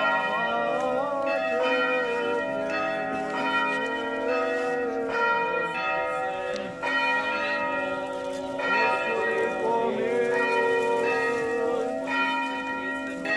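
Church bells ringing on and on, struck roughly once a second, their overlapping tones sustaining between strokes.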